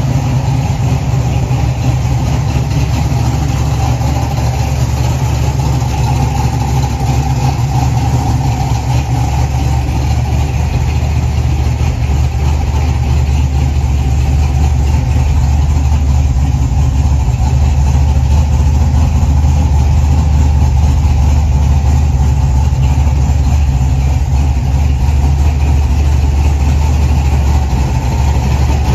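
The 1969 Chevrolet Camaro's 383 stroker V8 idling steadily, a deep, even engine note with no revving.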